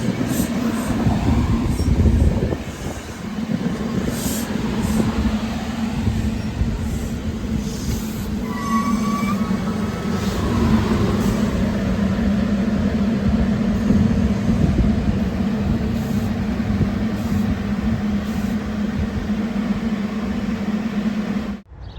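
A train running through a station with a steady low hum and rumble, and scattered clicks from the wheels on the rails. A brief high wheel squeal comes about nine seconds in. The sound cuts off suddenly near the end.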